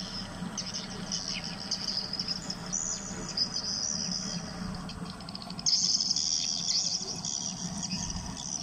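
Insects, crickets or cicadas, keep up a continuous high buzzing trill that swells noticeably louder a little past halfway. A low steady hum runs beneath it.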